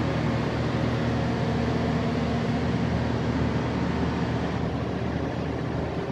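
Large Mitsubishi diesel engine of a Kohler generator set running steadily, a loud, even mechanical drone with a low hum underneath.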